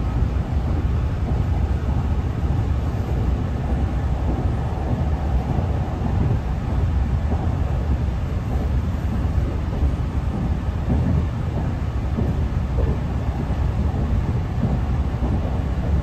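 Running noise of an NIR Class 3000 diesel multiple unit on the move, heard from inside the passenger saloon: a steady low rumble.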